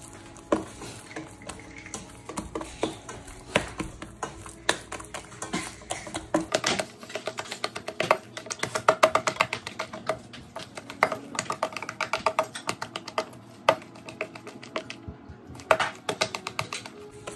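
Wet sourdough dough being hand-mixed Rubaud-style in a stainless steel bowl: fingers scooping and slapping the dough against the metal make rapid runs of small sticky clicks and taps.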